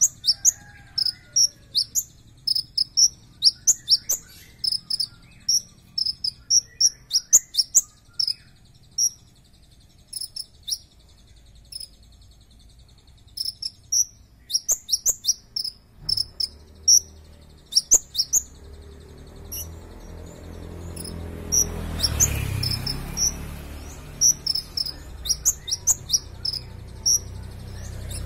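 Caged kolibri ninja (konin) sunbird singing: runs of short, sharp, high-pitched chirps repeated in quick succession, thinning out for a few seconds mid-way. In the second half a low engine rumble from passing traffic rises underneath, loudest about two-thirds of the way through.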